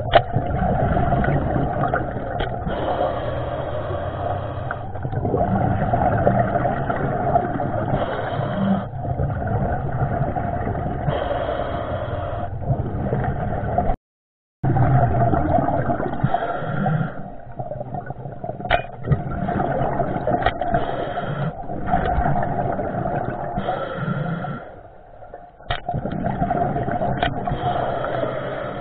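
Muffled underwater noise from a camera carried by a diver spearfishing on a reef: a steady rumbling hiss with scattered sharp clicks and scrapes. It drops out briefly about halfway through.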